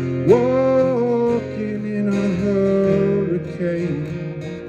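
Live solo acoustic guitar strummed while a man sings long held notes, one sliding up about a third of a second in, in the closing bars of a song.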